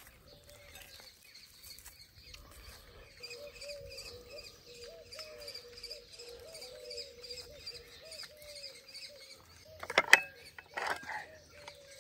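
Small birds chirping over and over, with high repeated chirps and lower rising-and-falling notes. About ten seconds in comes a brief sharp clatter, the loudest sound, and a smaller one a second later.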